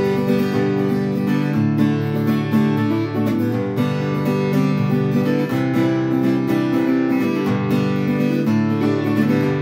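Strummed acoustic guitar playing an instrumental passage, with no voice.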